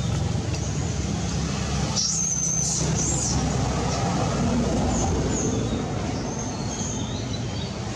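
Steady low rumble of a running engine, with a few short high chirps about two to three seconds in.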